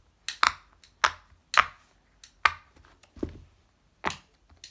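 Fidget toys being handled: a series of about eight sharp clicks and pops, unevenly spaced, with one duller knock about three seconds in.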